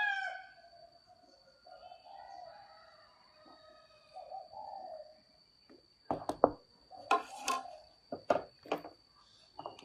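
A rooster crow tails off at the start, followed by quieter pitched bird calls. Between about six and nine seconds in comes a series of sharp knocks and clatters, the loudest sounds here.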